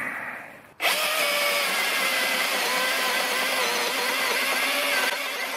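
Milwaukee M18 cordless electric chainsaw, running on an M18 HD 12.0 battery, cutting through a log. Its motor whine starts abruptly about a second in, stays steady with small dips in pitch as the chain loads up, and drops a little in level near the end.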